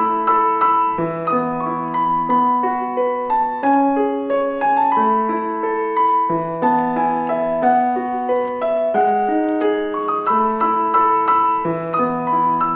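Background music: a gentle piano melody with chords, notes struck and held at an even, unhurried pace.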